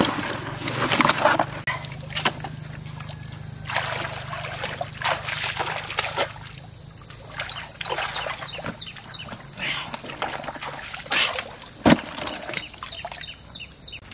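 Shallow muddy water splashing and sloshing in irregular spurts as hands grope through it, with one sharp splash near the end. A low steady hum runs underneath for most of the time.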